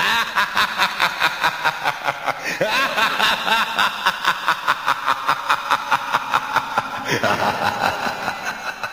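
Long run of rapid, even laughter, about five bursts a second, that dies away over the last couple of seconds.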